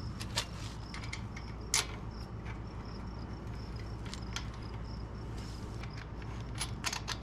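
Small metal clicks and clinks of handlebar clamp bolts and an Allen key being handled, with one sharper clink about two seconds in and a quick run of clicks near the end. A chirping insect repeats a short high note about twice a second over a low steady hum.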